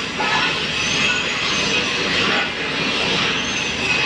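Steady hissing noise of shielded metal arc (stick) welding on steel pipe. A faint high whine rises and falls twice.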